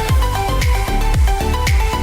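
Electronic background music with a steady beat: a deep kick drum about twice a second, a sharper hit about once a second, and a short-note synth melody over it.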